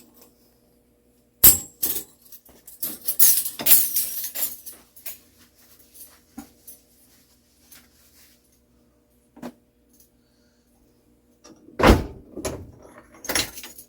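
Small metal clock parts being handled on the bench: a sharp clack about a second and a half in, a few seconds of rattling and scraping, scattered clicks, then another clack and rattle near the end. This is the handling of a freshly greased mantel clock mainspring.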